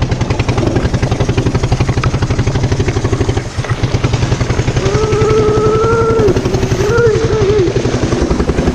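Small engine running at a steady speed with a fast, even pulsing beat, dipping briefly about three and a half seconds in; a voice calls out for a couple of seconds midway.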